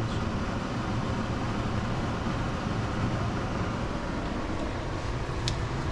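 Steady hum and rush of a running fan, with one sharp tick about five and a half seconds in.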